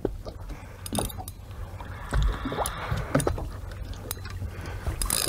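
Water lapping and gurgling against a small boat's hull over a steady low rumble, with a few scattered light knocks.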